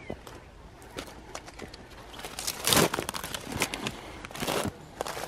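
Footsteps crunching over dry ground, with rustling. A few light crunches come early, then louder scuffing crunches from about halfway through.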